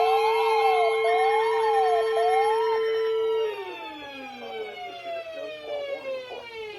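Several sirens sounding together, one holding a steady tone while another wails up and down about once a second. About halfway through they all wind down, falling in pitch and fading.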